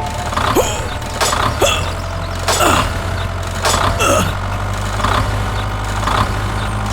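A steady, low engine-like drone, with a short sharp stroke and a falling tone recurring about once a second.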